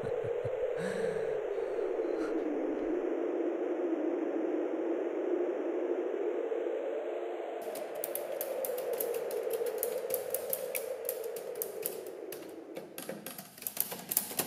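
A steady sound-design drone that slowly wavers in pitch; about halfway in, a rapid clatter of typewriter keys starts and grows denser toward the end, from a Consul typewriter being typed on.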